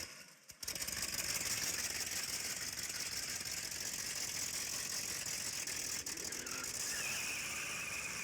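A steady, dense rattling with fine rapid ticks that starts about half a second in.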